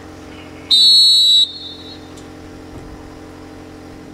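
Referee's whistle: one loud blast of under a second, starting about a second in, signalling the end of the minute of silence. A steady low hum runs underneath.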